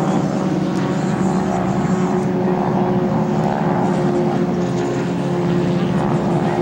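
North American T-6 Texans' 600-horsepower radial engines and propellers droning steadily as the aircraft pass in formation.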